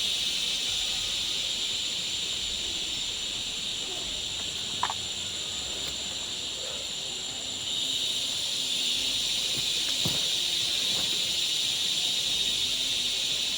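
Crickets and other night insects chirring in a steady high-pitched drone, with a couple of faint brief clicks.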